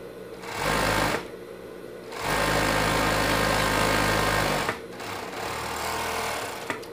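Sun Special industrial overlock machine stitching knit fabric in two runs: a short one about half a second in, then a longer one of about two and a half seconds, with a lower steady hum between and after the runs.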